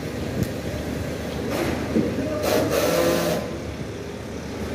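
Building-site noise: a steady low rumble with a few short knocks, and a louder hiss with some pitched tones in the middle lasting nearly two seconds.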